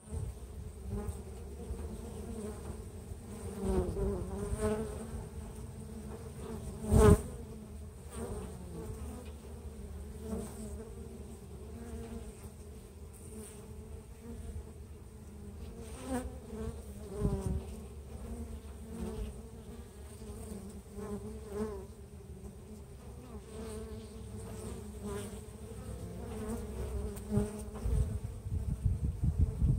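Honey bees buzzing at the hive entrance: a steady hum of many wings, swelling briefly as single bees fly close past. One sharp thump about seven seconds in is the loudest moment.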